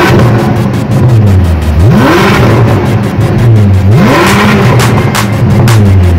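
Ferrari 488 twin-turbo V8 with an aftermarket Fi Exhaust, revved three times from idle while standing still: each rev sweeps up quickly and sinks back to idle, with crackles from the exhaust as the revs drop.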